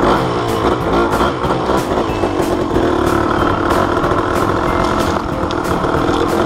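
Motorcycle running under way, its engine note wavering up and down.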